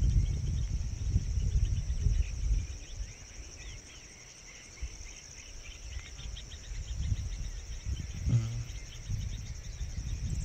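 Insects chirring steadily in a high, finely pulsing drone, over a low rumble that fades for a few seconds in the middle and builds again.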